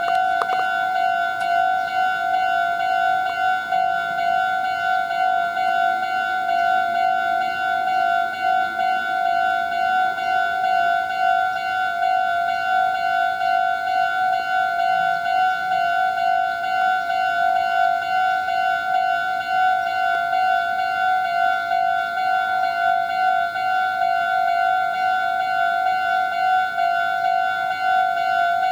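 Japanese railway level-crossing warning bell ringing continuously, a steady electronic ding repeated over and over, signalling that a train is approaching.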